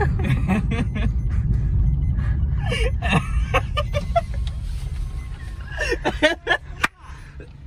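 Car engine and road rumble heard from inside the cabin while driving, easing off and quietening over the last couple of seconds, with faint voices and a sharp click near the end.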